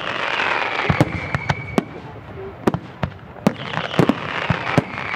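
Aerial firework shells bursting in quick succession: a string of sharp bangs, over a hissing crackle that swells twice.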